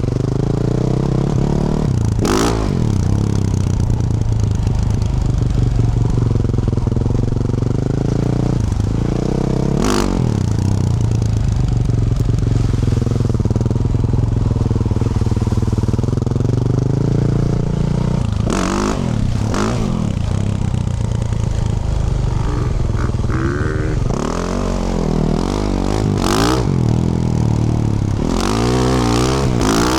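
Yamaha YZ450F's single-cylinder four-stroke engine through a Yoshimura RS-12 exhaust, riding at varying revs. Several brief sharp clacks cut through, and near the end the revs rise and fall quickly.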